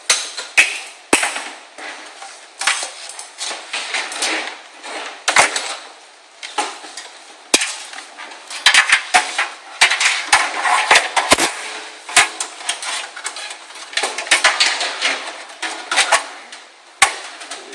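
A computer power supply being handled and fitted into a metal PC case: irregular knocks, clanks and rattles of metal on metal, with scraping and handling noise between.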